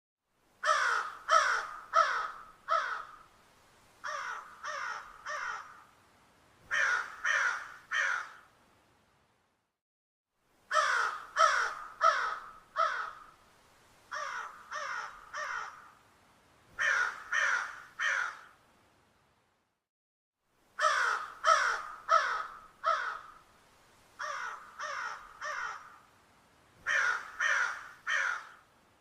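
Crow cawing in quick groups of three or four harsh caws: a loud group of four, a fainter group of three, then a loud group of three, the whole sequence repeating three times with short pauses between.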